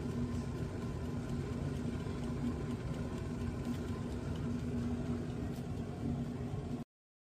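Aerogaz AZ-366ST electric food steamer running, its water boiling with a steady low rumble and a constant hum. The sound stops abruptly near the end.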